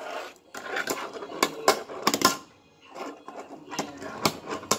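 Fingerboard wheels rolling over a tabletop and a plastic skatepark stair obstacle. Several sharp clacks come in between as the small board pops and lands on the plastic.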